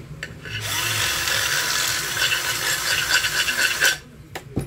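Cordless drill spinning up and running for about three seconds, its bit reopening a small hole in an aluminium pressure-cooker lid, then stopping. Sharp clicks of handling come before and after.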